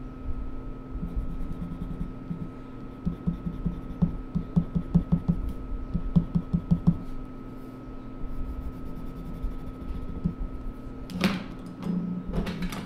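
A pen scratching on sketchbook paper in quick back-and-forth colouring strokes, in runs of about four to five strokes a second. Near the end, a sharp knock and rustle as the pen comes off the page.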